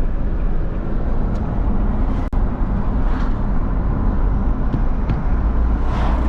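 Steady rumble of a moving vehicle with road and wind noise, heaviest in the low end, briefly dipping about two seconds in.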